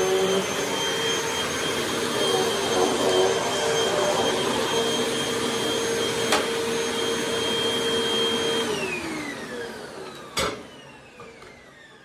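Hoover WindTunnel Rewind upright vacuum cleaner running steadily with a high whine. About three-quarters of the way in it is switched off and the motor winds down, its whine falling in pitch as it fades. A single sharp click near the end.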